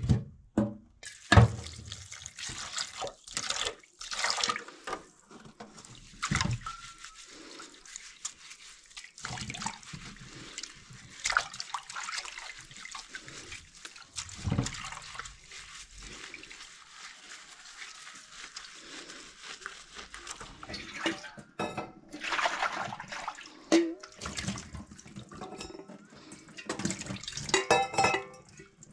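Water running from a spring-fed fountain tap to fill drinking-water containers, with irregular knocks and clunks as the containers are handled.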